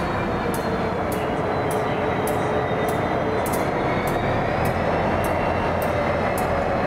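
A train running past at steady speed, a loud continuous rumble with a faint slowly shifting hum. Over it comes a regular run of sharp clicks about twice a second, like wheels passing over a rail joint.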